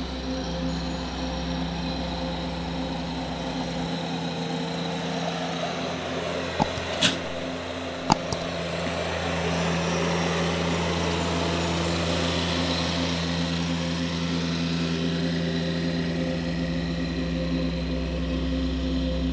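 An engine running steadily, with a few sharp clicks about seven and eight seconds in.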